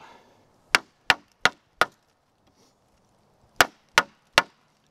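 Condor Woodlaw bushcraft knife chopping into a small branch with sharp strikes of blade into wood: four quick ones, a pause, then three more near the end.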